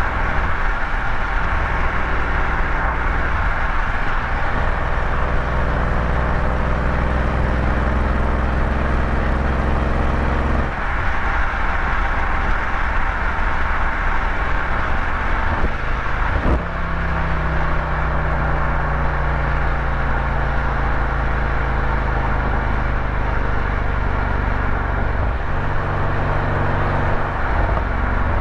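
Car engine running under way with road noise. The engine note jumps abruptly about eleven seconds in and again about sixteen seconds in, with a click at the second jump, then sinks slowly and shifts once more near the end.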